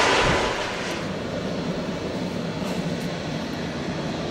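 Jet airliner engine noise, loud at first, then falling off about half a second in to a steadier, quieter level.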